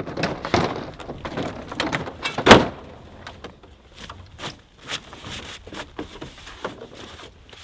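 An old snowmobile being pull-started without the engine catching: irregular rattles and knocks from the recoil starter and machine, with one sharp knock about two and a half seconds in.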